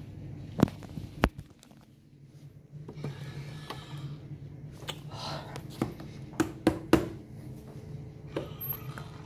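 Touchless soap dispenser giving a short whirring dispense into an outstretched hand, among several sharp clicks and taps. A low steady hum runs underneath.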